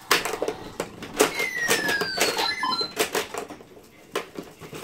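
Toy pinball gumball machine in play: rapid plastic clacks and knocks of the ball and flippers, with a falling tone from the machine about a second and a half in.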